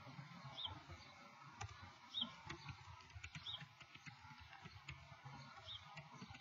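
Quiet outdoor ambience: a bird gives four short, high chirps spread through it, over scattered faint clicks of a laptop keyboard being typed on.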